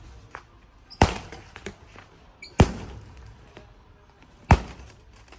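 Bolt cutters snapping through the straps of a compressed clothing bale: three sharp snaps, about a second and a half to two seconds apart, each fading quickly.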